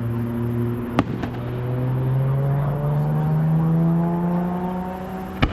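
An engine running with its pitch rising slowly and steadily, as a vehicle speeds up, while two sharp firework bangs go off, one about a second in and a louder one near the end.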